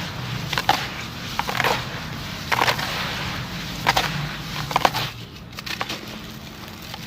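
Chunks of sand-cement being crushed and crumbled, a crisp crunch about once a second, with smaller crumbling crackles after about five seconds.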